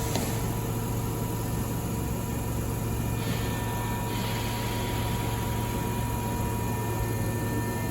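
Steady hum of an electric commuter train standing at the platform, a low drone with a thin higher tone that comes in about three seconds in.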